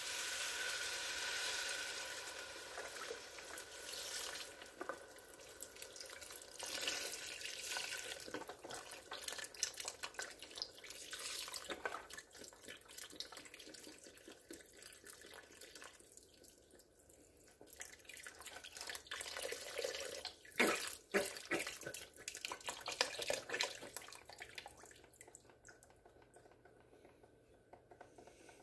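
Chicken broth being poured from a carton into a pot of vegetables: a splashing, trickling pour that swells and fades, louder at the start and again about two-thirds of the way through.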